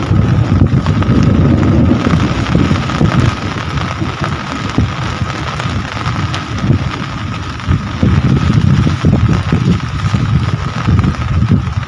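Heavy rain falling, under a deep, uneven rumble that is the loudest part of the sound, with a faint steady high tone above it. The rumble eases for a few seconds in the middle, then comes back.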